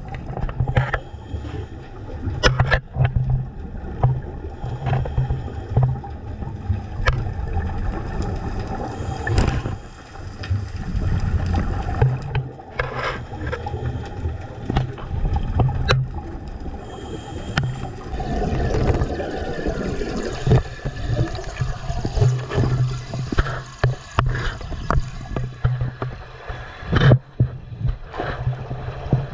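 Underwater sound through an action camera's housing during a diver's slow ascent: a steady muffled low rumble, with frequent sharp clicks and pops throughout.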